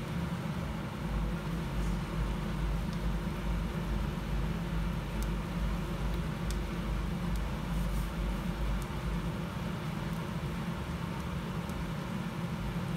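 Steady low rumble with a few faint, scattered crackles from vegetable strips frying in a pan.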